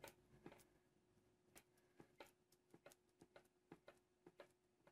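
Faint, irregular small clicks and taps, about a dozen, as hands handle and press a leather carrying handle with metal end fittings on a sheet of paper.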